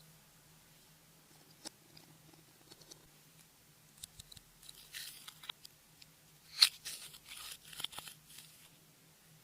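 Clear slime being worked by hand: sticky, wet clicks and crackles, sparse at first and then coming thick from about four seconds in, the loudest near the middle of that run.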